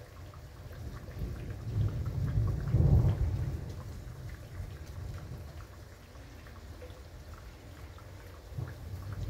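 Thunder rumbling, building for about two seconds to a peak around three seconds in and then fading away, with rain falling steadily throughout. A second rumble starts to build near the end.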